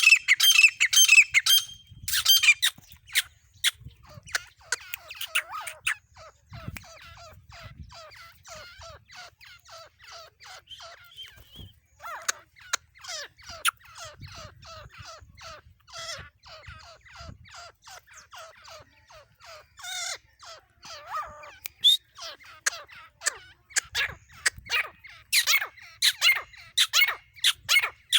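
Female grey francolin (desi teetar) calling: a long run of quick, sharp repeated notes. The calls are loud and crowded at the start and again in the last few seconds, and softer and more evenly spaced in between.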